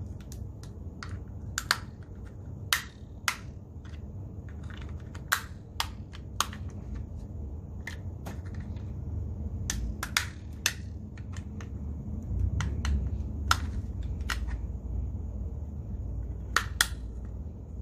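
Irregular sharp plastic clicks and snaps from a DJI Spark remote controller's housing being pried apart, its clips popping and parts knocking, over a low rumble.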